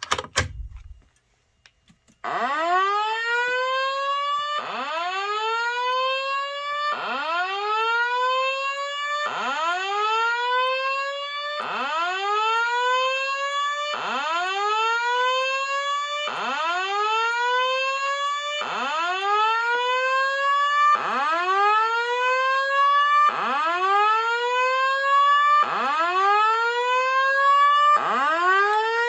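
Simplex speaker/strobe fire alarm speakers sounding the evacuation alert tone on its own, without the spoken message. A rising sweep repeats about every 2.3 seconds, twelve times. It starts about two seconds in, after a sharp click.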